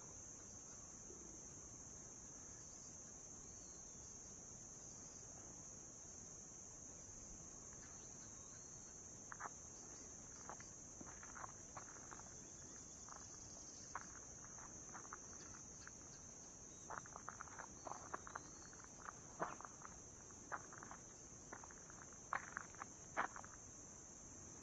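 Faint steady high-pitched insect chorus, with irregular light footsteps starting about nine seconds in.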